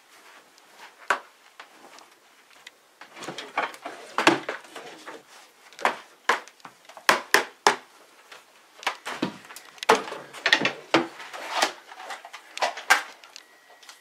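Irregular knocks, clatters and thumps of household objects being handled and rummaged through, a dozen or more sharp hits spread unevenly with no steady rhythm.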